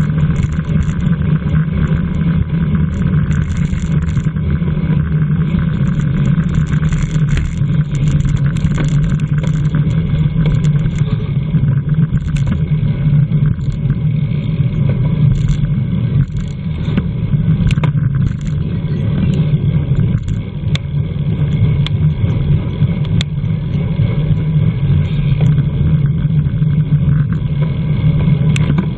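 Wind rushing over the microphone of a camera mounted on a racing bicycle at speed, with tyre and road noise: a steady, loud low rumble with scattered small ticks and rattles.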